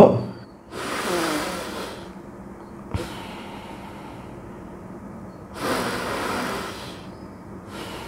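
A man breathing in and out slowly and deeply, a deep-breathing exercise done with the hands pressing on the lower ribs; long audible breaths come about a second in and again near six seconds in, with a short click about three seconds in.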